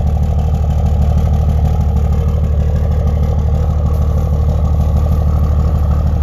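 1992–97 OBS Ford pickup's engine idling steadily, a loud, even pulsing exhaust note.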